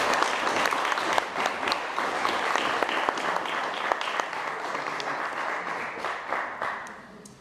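Audience applauding, a dense patter of clapping that dies away over the last second or so.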